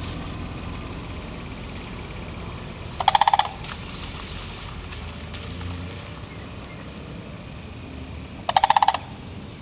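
Two short rattling bird calls, each a rapid trill of about half a second, one about three seconds in and one near the end, over steady outdoor background noise.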